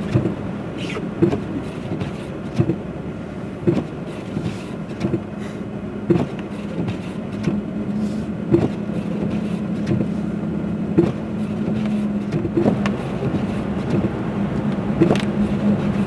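Inside the cab of a Chevy Silverado pickup driving slowly through deep snow: a steady engine and road hum, with a soft knock about every second.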